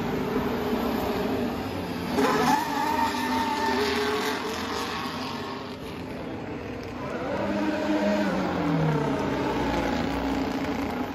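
Formula 1 cars' turbocharged V6 hybrid engines at speed, passing along the main straight. One loud pass comes about two seconds in, and another around eight seconds, its engine note dropping in pitch as it goes by.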